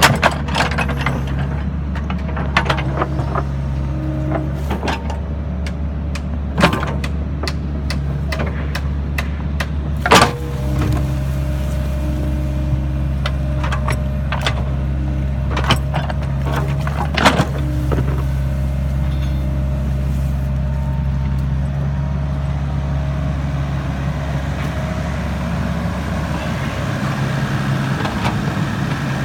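Sany SY55C mini excavator's diesel engine running steadily under work, with several sharp metallic clanks, the loudest about ten seconds in.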